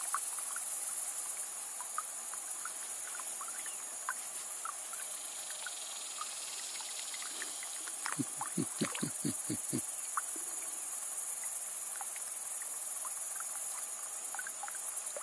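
Steady high-pitched chorus of insects chirring at the creek side. About eight seconds in, a quick run of about seven small splashes, like a bait being popped on the water's surface.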